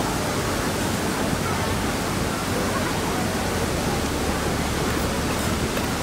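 Waterfall's steady rush of falling water, an even, unbroken noise.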